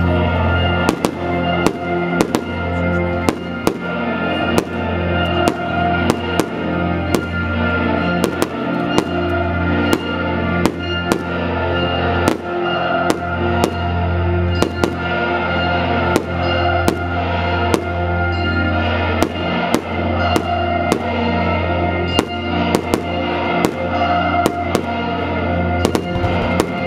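Aerial fireworks bursting, a long run of sharp bangs coming irregularly at about one to two a second, over continuous music with long held tones.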